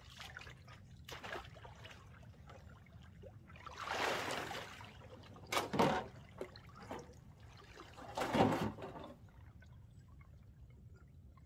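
Shallow pond water splashing and sloshing, in three short louder bursts about four, six and eight seconds in, with fainter scattered small splashes between them, as someone wades beside a riding mower nosed into the water and handles its flooded auxiliary gas can.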